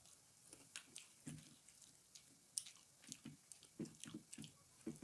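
Faint chewing of pizza: irregular soft mouth clicks and smacks, more frequent in the second half.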